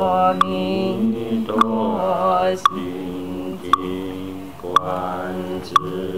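Buddhist chanting from a life-release (fangsheng) liturgy, a voice holding long sustained notes. A sharp knock with a short ring is struck about once a second, keeping the beat.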